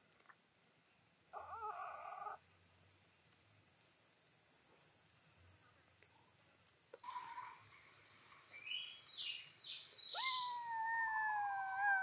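Kittens meowing: a short meow about a second and a half in, and a long, drawn-out meow near the end that drops in pitch as it closes. Underneath, a steady high-pitched drone of insects.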